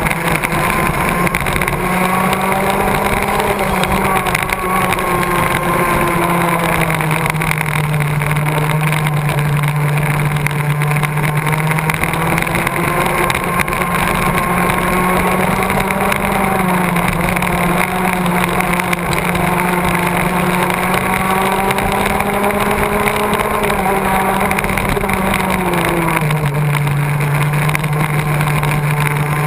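Racing go-kart engine running at race speed, its pitch dropping and climbing a little every few seconds through the corners.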